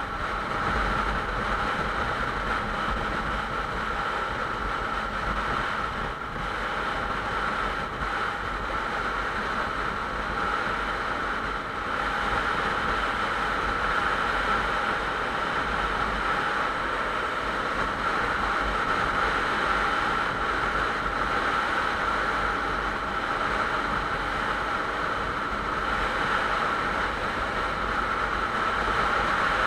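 Motorcycle cruising at highway speed: a steady rush of wind over the microphone mixed with engine and road noise, unchanging throughout.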